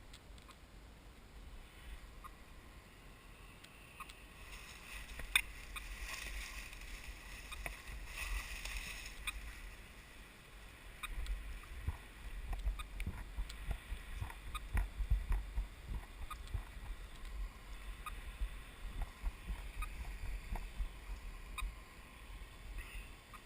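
Footsteps and rustling through forest undergrowth and leaf litter, with uneven dull thumps and scattered small snaps and crackles. The thumps grow stronger about halfway through.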